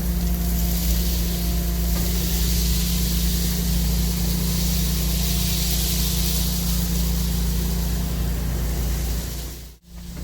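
Insulation removal vacuum running steadily: a constant low motor hum with a rush of air through the hose. The sound drops out for a moment near the end.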